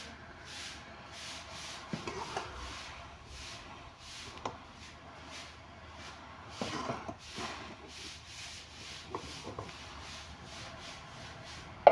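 Spoon stirring simmering onion greens in a metal pot, scraping against the pot about twice a second, with a few light knocks.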